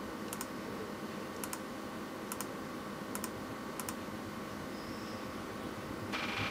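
Faint double clicks, five pairs about a second apart, over a steady low hum, with a short rustle at the very end.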